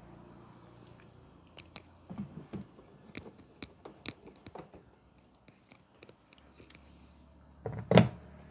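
Scattered clicks and light knocks of a tool and screws being handled while the washing machine's base screws are fastened, with one loud thump near the end.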